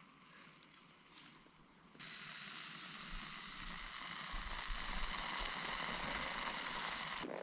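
Butter-brushed mushrooms sizzling over a campfire, a steady hiss that starts abruptly about two seconds in and cuts off just before the end.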